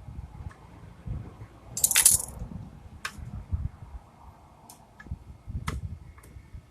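Small metal parts and tools clinking while the mower's engine is put back together: one louder metallic clatter about two seconds in, then several short sharp clicks, over low handling noise.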